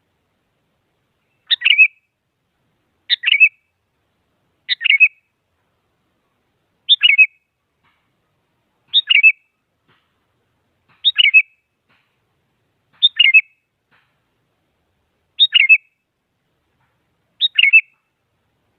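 Sooty-headed bulbul calling: a short, quick phrase of a few notes repeated nine times, about every two seconds, with silence between.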